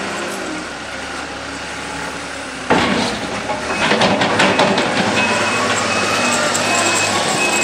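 Caterpillar compact wheel loader's diesel engine running, with a sudden louder burst of engine noise and clatter about three seconds in as its raised bucket tips snow into a dump truck's bed. About five seconds in, a reversing alarm starts beeping steadily, roughly once every 0.7 seconds.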